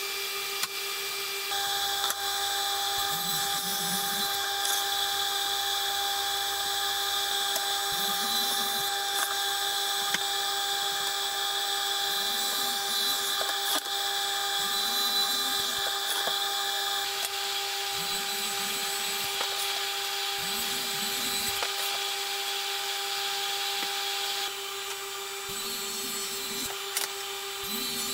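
Table saw running steadily with its overarm guard's dust extraction, as wood panels are fed through and cut one after another; short low swells in the sound come every few seconds.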